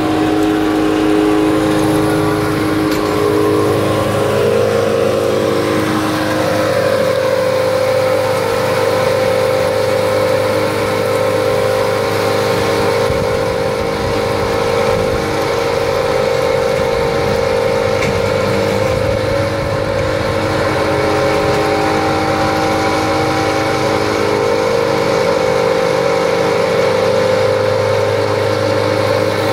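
Engine-driven vibrating soil screener and a mini excavator's diesel engine running together steadily, with several steady engine tones that shift about six seconds in.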